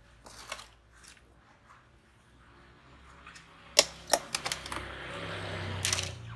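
Clear plastic tubs and lids being handled: a brief rustle about half a second in, then several sharp plastic clicks and taps a little before the end, running into a rustling scrape of plastic that lasts about two seconds.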